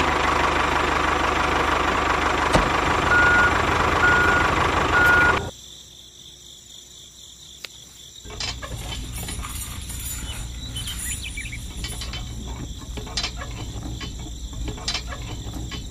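Small electric motor of a toy tractor running with a steady whir, with three short high beeps about three to five seconds in; it cuts off abruptly after about five and a half seconds. Later, a small metal chain clinks and rattles as it is hooked between two toy tractors.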